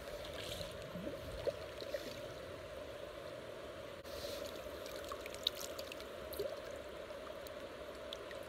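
River water flowing steadily, with a few small ticks and splashes scattered through it and a brief break about four seconds in.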